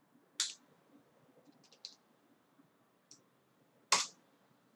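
Computer mouse and keyboard clicks: a sharp click about half a second in, a quick run of light clicks around a second and a half, a faint one near three seconds, and the loudest click just before the end.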